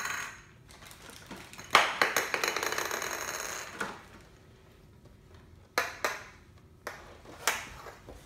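Plastic Play-Doh toy pieces and clear plastic packaging being handled on a tabletop: a tap at the start, a couple of seconds of rapid crackling clatter, then several separate clicks and taps.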